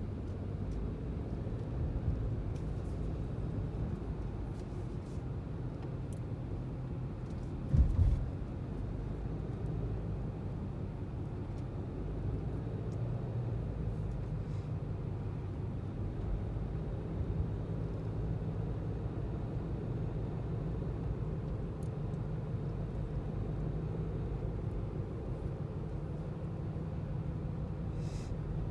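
A car driving: a steady low road rumble, with one brief thump about eight seconds in.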